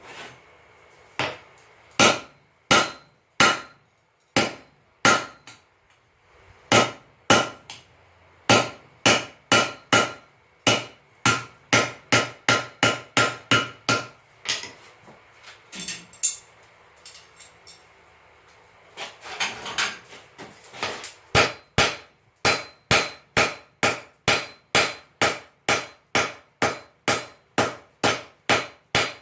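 Blacksmith's hammer striking hot steel on an anvil while forging a door-hinge pintle, each blow ringing. A few spaced blows, then runs of quick, even strikes at about two to three a second, broken by a pause of several seconds midway.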